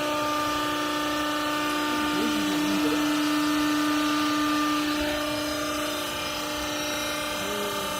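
Hydraulic baler's electric motor and pump running, a steady mechanical hum with a pitched tone, easing a little about five seconds in.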